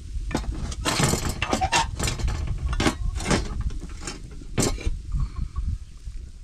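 Irregular series of hard knocks and clatters, about ten of them, thinning out after about five seconds, over a low rumble.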